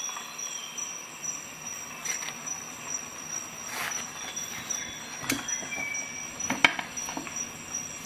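Handling noise from a Leatherman multitool and its nylon sheath: scattered clicks and knocks of the metal tool against the sheath and desk, with brief squeaks as it slides, the sharpest click about two-thirds of the way through.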